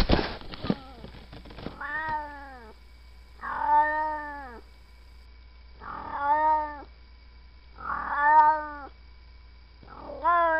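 Domestic cat meowing close by: five drawn-out meows about two seconds apart, each rising then falling in pitch. A sharp knock sounds right at the start.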